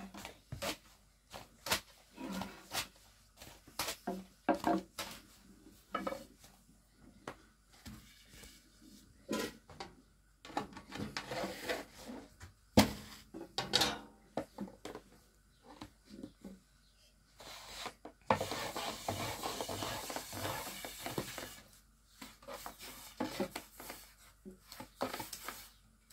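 Thin wooden rolling pins clicking and knocking against low wooden boards as flatbread dough is rolled out, in irregular taps throughout. About two-thirds in there are a few seconds of steady scraping as the pin rolls across the floured board.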